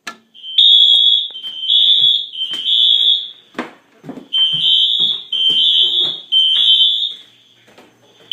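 Fire alarm sounders beeping a high, piercing tone in groups of three long beeps, each group followed by a pause: the temporal-three evacuation pattern. A few knocks and clatter fall in the first pause.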